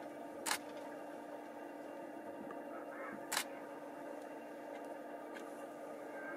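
Two sharp camera shutter clicks about three seconds apart, over a steady low hum.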